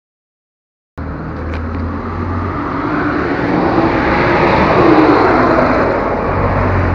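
A truck passing on the street, its engine and road noise swelling to a peak about four seconds in and then easing off, after a second of silence.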